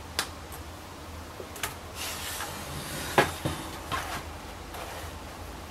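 Handling noise from a laptop's plastic lid and screen panel being moved and set down: a few sharp clicks and knocks, the loudest about three seconds in, with rustling between them.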